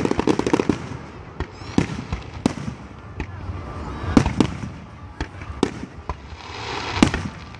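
Aerial fireworks display: shells bursting in irregularly spaced bangs, with a spell of rapid crackling in the first second and the loudest bang about seven seconds in.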